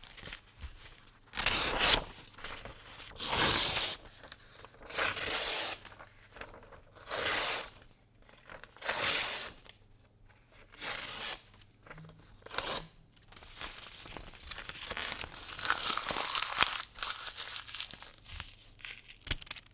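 Sheets of paper being torn by hand: about seven separate rips, one every second and a half or so, then a longer, quieter, uneven stretch of tearing and a few short tears near the end.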